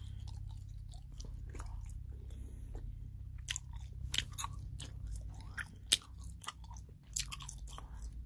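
Close-up mouth sounds of someone chewing Dubble Bubble bubble gum: irregular wet smacks and sharp clicks of the gum, a few of them louder, over a steady low hum.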